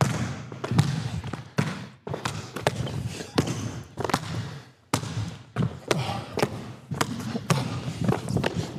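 A basketball being dribbled on an indoor court floor: a run of sharp bounces, about two a second, now and then uneven.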